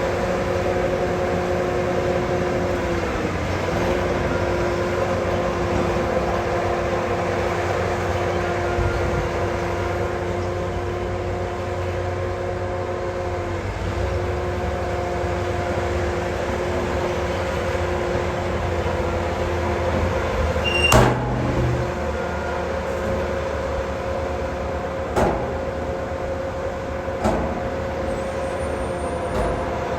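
Heavy diesel earthmoving machinery running at steady revs, its hum dipping briefly twice, with a sharp metallic clank about two-thirds of the way in and two lighter knocks after it.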